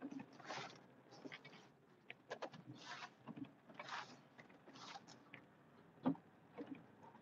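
Western WideOut XL snowplow blade pushing snow, heard faintly from inside the truck cab: short hissing scrapes about once a second among irregular clicks and rattles, with one sharper knock about six seconds in.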